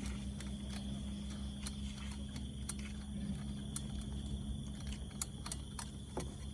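Scattered light clicks at irregular intervals over a steady low hum, with a faint high steady tone.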